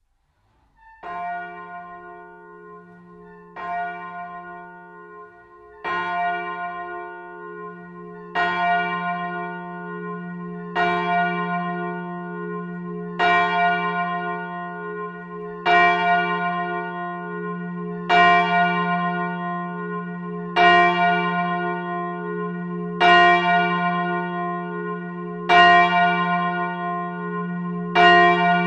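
A single church bell tolling, struck about every two and a half seconds at the same pitch, each stroke ringing on into the next. The strokes grow louder over the first several.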